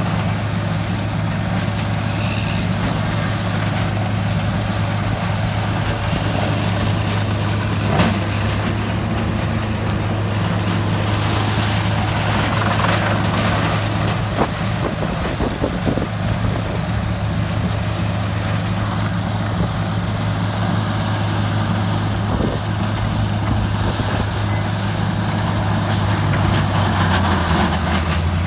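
Morbark 3200 horizontal track grinder's diesel engine running steadily, a deep hum with a high whine that slowly drifts up and down in pitch.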